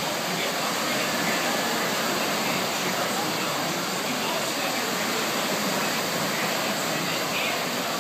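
Wave pool surf: artificial waves breaking and rushing across the pool in a steady wash of water noise, with the voices of swimmers in the background.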